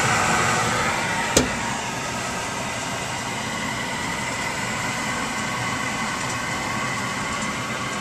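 Package HVAC unit running on a heat call, giving a steady fan hum and rush with faint steady tones. A single sharp click about a second and a half in.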